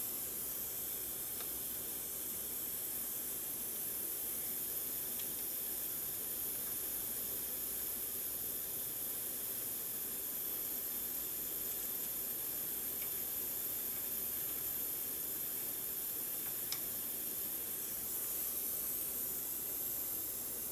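Steady high-pitched hiss of background noise, with a few faint ticks.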